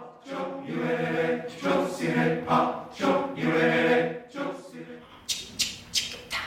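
Mixed chorus singing a cappella, several short held chords in a chant-like phrase. About five seconds in the singing stops and sharp percussive taps start in a quick rhythm, a few a second.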